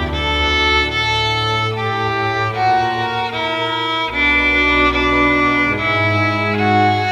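Bowed string ensemble of violins and cellos playing a slow piece: held melody notes over low cello notes, the notes changing about once a second.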